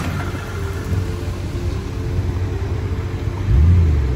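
Jeep Wrangler engine running with a steady low rumble, revved briefly about three and a half seconds in.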